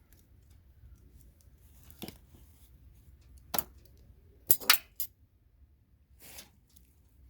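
A few sharp, separate metallic clinks and taps from hand tools working CPU sockets off motherboards, the loudest two in quick succession a little past the middle.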